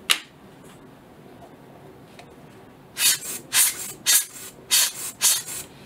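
A sharp click at the start, then, from about three seconds in, a run of about six short puffs of air from a hand-squeezed rubber bulb blower, roughly two a second, blowing dust off a lens element.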